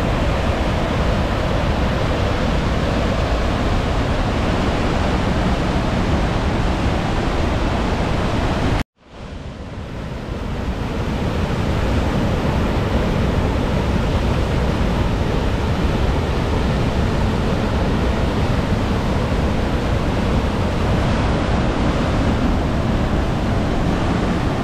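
Loud, steady roar of rushing water. It cuts out abruptly about nine seconds in, then fades back up over the next few seconds.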